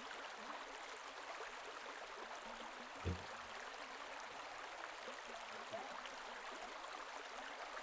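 Faint, steady rush of flowing canal water, with one soft low thump about three seconds in.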